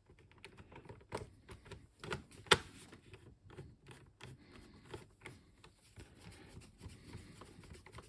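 Screwdriver driving a long Torx screw into a computer case by hand: scattered light clicks and taps at an uneven pace, with one sharper click about two and a half seconds in.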